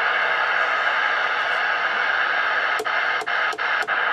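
Cobra 29 GTL CB radio's speaker putting out steady receiver static on a quiet channel. About three seconds in, the rotary channel selector is clicked down several channels, each step giving a sharp click and a brief break in the hiss.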